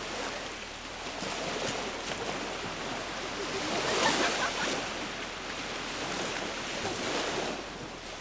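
Ocean surf breaking on a beach: a wash of wave noise that swells to its loudest about four seconds in, then eases back.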